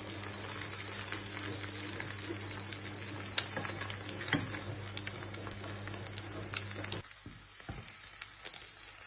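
Food sizzling and crackling in a frying pan, with irregular small pops. About seven seconds in, the sizzle and a steady low hum beneath it drop away and it goes quieter.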